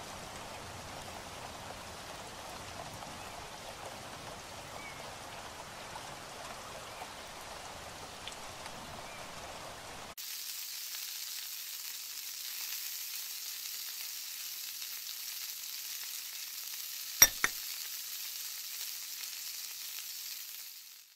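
Sizzling of food frying in a pan, a sound effect laid over toy cooking. The steady sizzle changes abruptly about halfway through to a thinner, hissier sizzle, with one sharp click a few seconds before the end.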